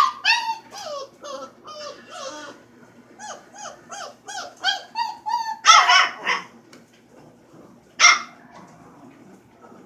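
Four-week-old puppy yipping in rapid strings of short, high cries that slide down in pitch, about three or four a second. Near six seconds and again at about eight seconds there is a louder, rougher bark.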